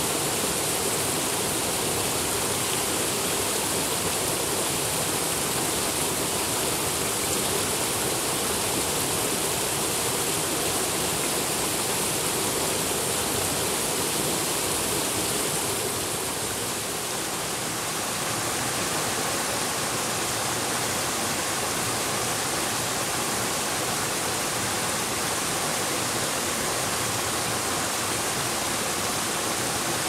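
Water of a shallow mountain stream and small waterfall rushing steadily over rocks. A little past halfway it dips briefly and the rush changes in tone, becoming a little less hissy.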